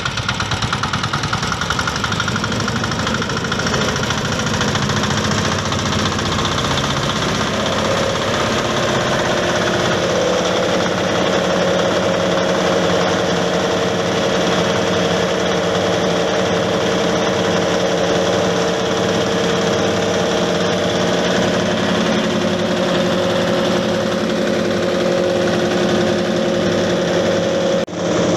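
Engine-driven rice-husk grinding machine running steadily at full speed, with a dense grinding roar throughout. From about eight to ten seconds in, a steady hum and a regular low throb settle in. The sound dips briefly just before the end.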